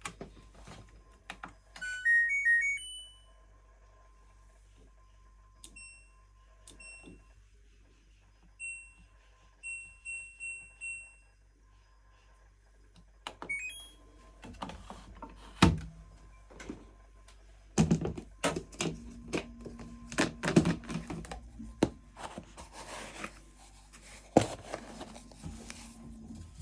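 LG washing machine control panel beeping: a short tune of rising beeps about two seconds in, then single button beeps as settings are chosen, and a quick rising run of beeps about thirteen seconds in. After that come irregular clunks and knocks with a low hum at times as the machine starts up.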